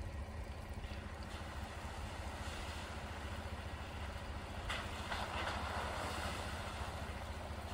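Two Jeep Wranglers approaching slowly along a snowy dirt trail: faint engine rumble and tyre noise that swells about five seconds in as they draw nearer.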